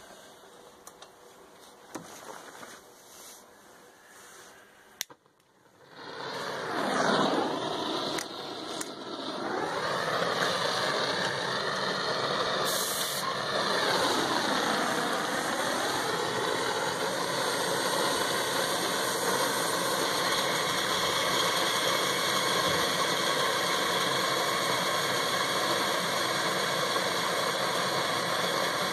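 Homemade waste-oil forge burner starting up about six seconds in, after a few light clicks, then running with a steady rushing noise of air jet and flame.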